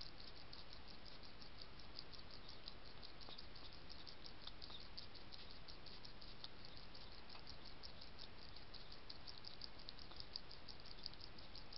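A hedgehog chewing and smacking as it eats from a metal tray: a rapid, irregular run of small, sharp clicks over a steady background hiss.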